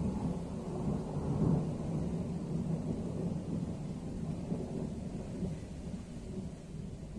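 Distant rolling thunder: a low rumble that swells to its loudest about a second and a half in, then slowly dies away.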